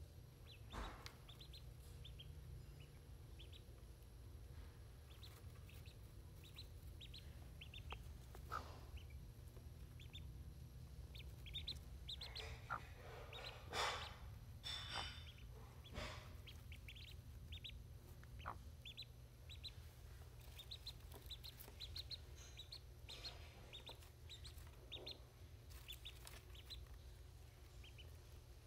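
Ducklings peeping in short high notes over and over, with the brooding hen clucking; the calls are busiest and loudest around the middle. A steady low hum sits underneath.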